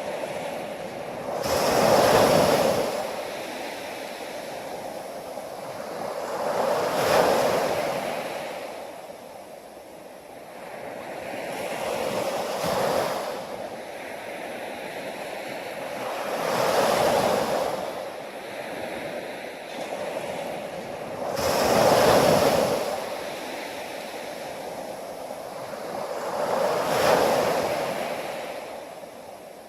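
Ocean waves breaking, six surges about five seconds apart, each swelling and falling away into quieter surf between them.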